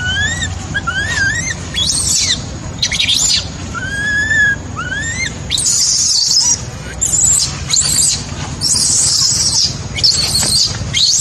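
Infant macaque crying: a run of short rising-and-falling whimpering coos in the first two seconds, then harsher, shrill screams that grow longer and come closer together in the second half.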